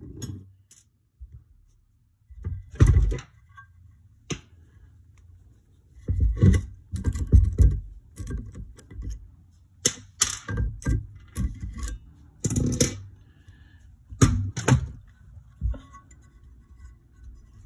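Irregular metal clicks, knocks and rattles of a hand tool and small parts against a Yamaha YZ250F cylinder head as its valves are taken out, in clusters a few seconds apart with low thuds as the head is moved on the bench.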